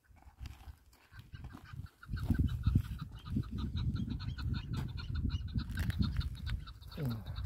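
Chukar partridges calling in a rapid run of short clucking notes, with a heavy low rumble on the microphone from about two seconds in.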